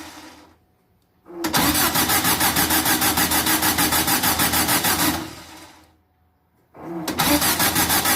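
Air-cooled 2332cc VW flat-four being cranked over on the starter in two bursts, the engine turning in an even rhythm of about six pulses a second. The first burst lasts about four seconds and winds down, and a second starts near the end. It is being cranked to build oil pressure after fresh oil and a new filter, before it is started.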